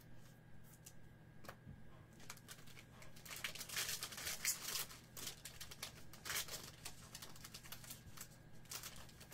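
Trading card packs and cards being handled: faint crinkling and quick clicking rustles, busiest about three to five seconds in, over a low steady hum.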